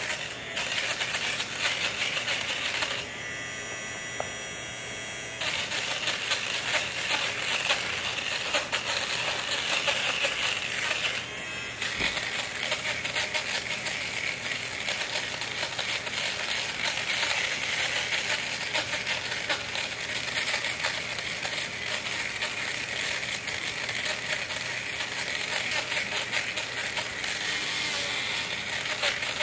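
Electric fabric shaver running over a bouclé couch: a steady motor hum with a dense crackle as its spinning blades cut off pills and loose fibres. It drops out twice, for about two seconds about three seconds in, and briefly again a little before the middle.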